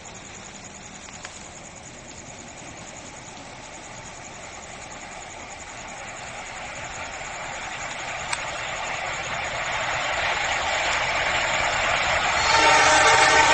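A train approaching, its diesel locomotive's engine growing steadily louder, then jumping much louder about twelve seconds in as the locomotive draws close.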